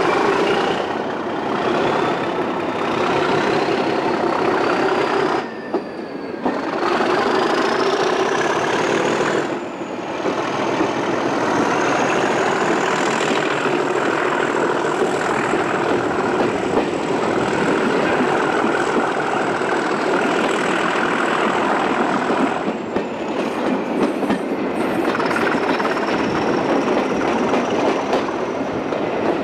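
Class 37 diesel-electric locomotive's turbocharged English Electric V12 engine working hard as the train pulls away, the throaty exhaust joined by a turbocharger whistle that climbs steadily in pitch, holds high, then falls away about three-quarters of the way through.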